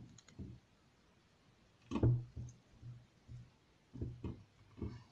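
Short knocks and clicks from handling speaker cables and terminals during wiring, the loudest about two seconds in, followed by several smaller ones.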